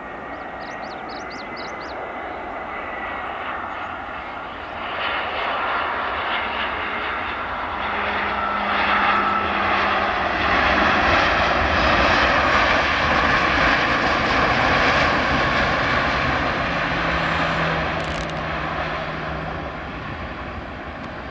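Airbus A320 airliner's jet engines as the plane passes: a wide rush of engine noise that builds over several seconds, is loudest a little past halfway, then fades away.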